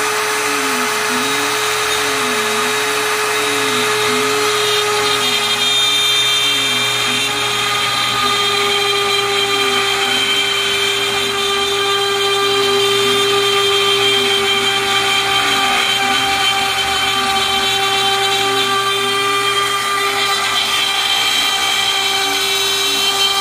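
Harbor Freight router on an MPCNC spinning a dull two-flute upcut spiral bit and cutting into an aluminium plate with a steady, loud whine that doesn't sound great. A lower tone rises and falls about every second and a half as the machine circles down in a helical plunge.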